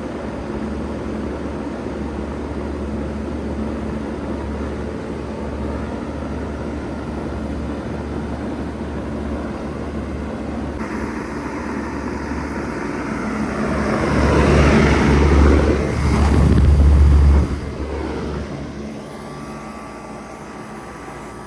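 2000 Bard 3-ton wall-hung heat pump running in cool mode: a steady low hum under an even rush of air. About 13 seconds in a louder rushing sound swells up, then cuts off sharply, and the sound settles quieter for the last few seconds.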